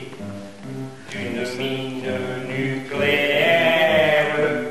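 A man singing a Catalan song to his own acoustic guitar, in a chant-like voice, holding a long loud note from about three seconds in.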